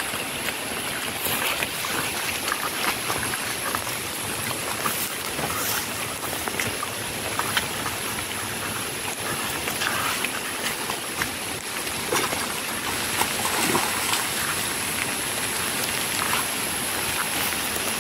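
Steady rain falling, with scattered footsteps on wet, muddy ground.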